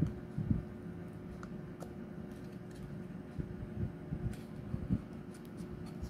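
Paper handling as hands fold and press a papercraft finger puppet: faint paper rustles and clicks with irregular soft low thumps, over a steady low hum.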